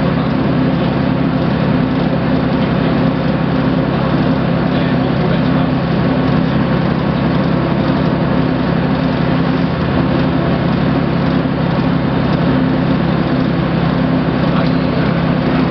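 Ikarus-Zemun IK160P bus's diesel engine running steadily at a constant cruising speed, heard from inside the bus along with road and body noise.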